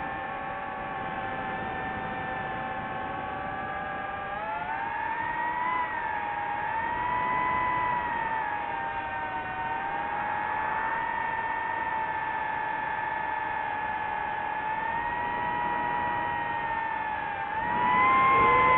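DJI FPV drone's motors and propellers whining, the pitch rising and falling as the throttle changes. The whine swells louder and higher near the end.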